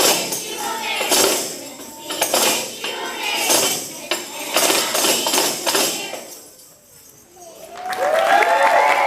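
Tambourines shaken on a steady beat, about one hit a second, with children singing, stopping about six seconds in as the song ends. About two seconds later the audience starts cheering and clapping.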